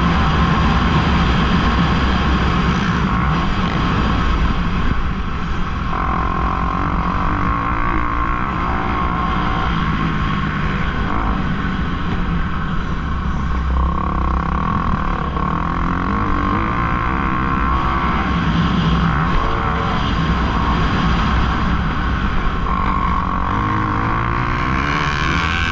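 Kawasaki KX250F motocross bike's four-stroke single-cylinder engine running hard from on board, its pitch rising and falling continually as the rider revs and shifts.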